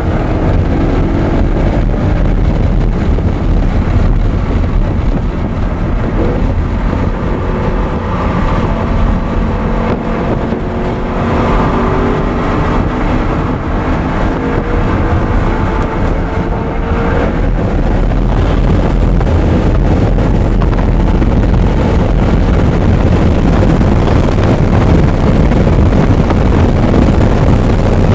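Audi R8 driven hard on track: engine pitch rising and falling through the gears for the first part, then mostly heavy wind and road rush at speed.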